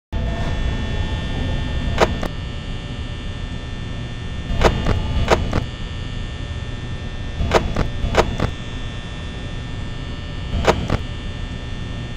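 A steady electrical hum, broken by sharp clicks or knocks that mostly come in pairs, about a dozen in all.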